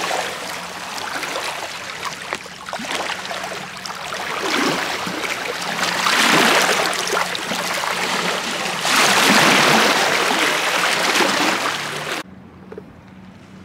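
Small waves washing and splashing over shoreline boulders, a rushing noise that surges and eases every couple of seconds. It cuts off suddenly near the end.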